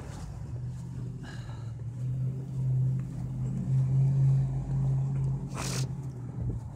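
Low, steady machine hum that swells twice and cuts off abruptly shortly before the end. A brief rushing noise comes about a second in and a short hiss near the end.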